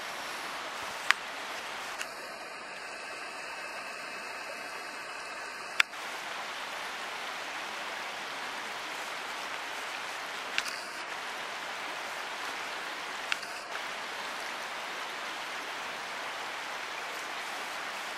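Steady hissing, rushing outdoor background noise with no clear pattern, broken by four sharp clicks: the loudest about a second in and just before six seconds, two fainter ones later.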